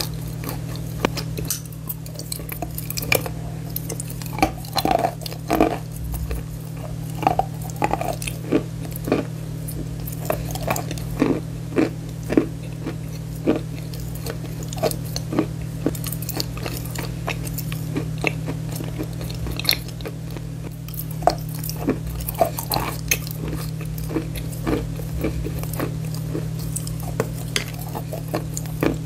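Close-miked chewing of block chalk: many sharp, irregular crunches and clicks as the chalk is bitten and ground between the teeth, over a steady low hum.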